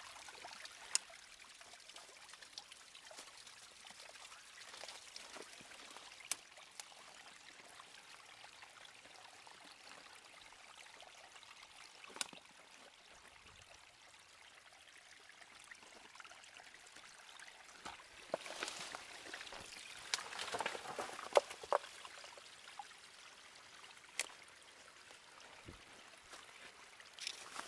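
A small forest stream trickling over rocks and twigs, faint and steady. A few sharp clicks come through it, and a louder stretch of rustling and clicking comes about two-thirds of the way through.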